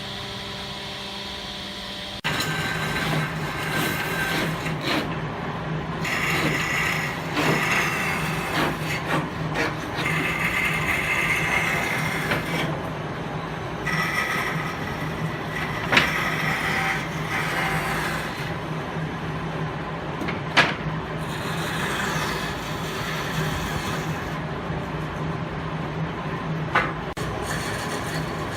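A machine hum, most likely a power tool at work on wood, starts abruptly about two seconds in and runs steadily, with a few sharp knocks.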